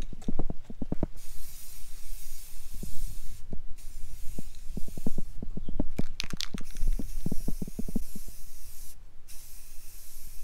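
Aerosol spray-paint can hissing in two sprays of a couple of seconds each, each cutting off suddenly, with quick rattling knocks around them as the can is shaken.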